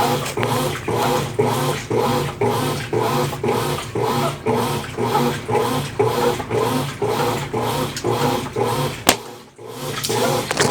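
Consul Facilite 10 kg top-loading washing machine in its wash stage, its motor driving the agitator back and forth at about two to three strokes a second, the clothes and water churning and rubbing with each stroke. About nine seconds in there is a sharp click and the churning stops for about half a second before it starts again.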